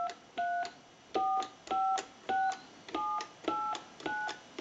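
Touch-tone keypad of a Mickey Mouse telephone sending DTMF dialing tones as its keys are pressed in turn through the digits: eight short two-note beeps, about two a second, each starting with a click of the button.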